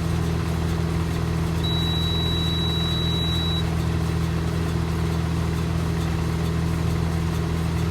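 Tractor engine running steadily, heard from inside the cab, with one long high electronic beep from the baler's in-cab control box starting about a second and a half in and lasting about two seconds.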